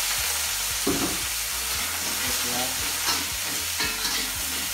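Meatballs sizzling in hot oil in a wok, the frying hiss steady and loud, with a spatula scraping and knocking against the wok several times as they are stirred.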